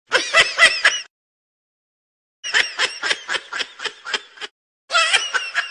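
Kitten mewing in quick, high-pitched squeaks that run together like laughter, in three bursts.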